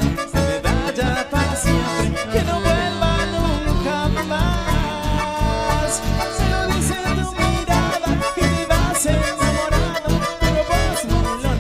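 Live band playing with two button accordions carrying the melody over acoustic and electric guitars and bass, with a steady, quick beat.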